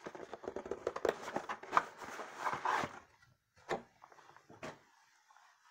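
Cardboard model-kit box being opened and handled: scraping and rustling of the lid against the box for about three seconds, then two sharp knocks.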